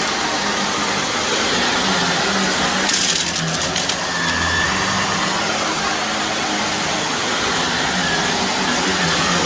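Shark vacuum cleaner running steadily over carpet, sucking up dry soil and grit, with a brief burst of crackling debris crunch about three seconds in.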